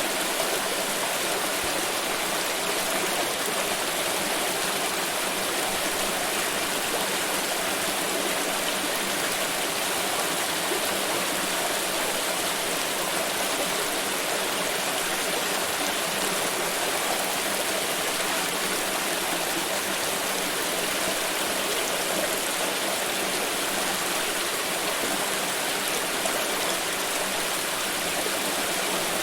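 Flowing water in a stream: a steady, unbroken rush of running water.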